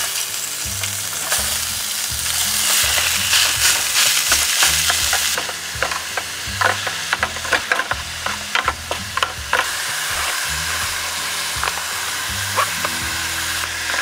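Minced meat frying in olive oil in an aluminium mess tin, sizzling loudly as it goes in, while a spatula stirs it. After about five seconds the sizzle softens and the spatula's scrapes and taps on the tin come through as many quick clicks.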